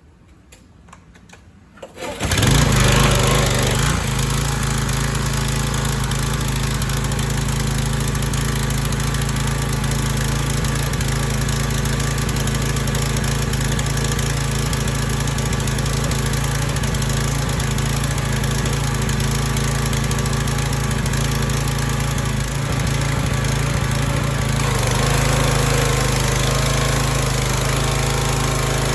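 A Troy-Bilt pressure washer's small gasoline engine catches about two seconds in and then runs steadily, its gummed-up carburetor freshly rebuilt. Near the end the running note shifts and gets a little louder.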